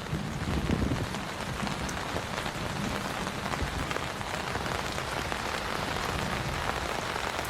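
Heavy rain falling steadily on a tent, a dense even patter of drops.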